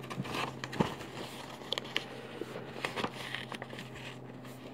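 Construction paper being folded and creased by hand: scattered soft crinkles and light taps over a low steady hum.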